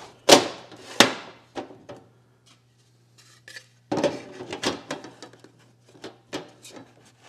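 3D-printed black PLA collet rack pieces knocking and clattering as they are set into a tool-chest drawer: two sharp knocks in the first second, then a few lighter clacks and rubbing about four seconds in.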